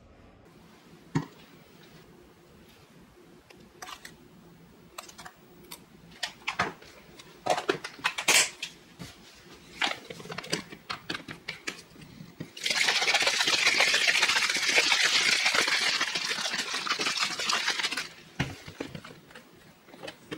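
Clicks and knocks of a clear plastic shaker bottle being handled and closed, then the bottle of protein powder and water shaken hard for about five seconds, a dense steady sloshing rattle.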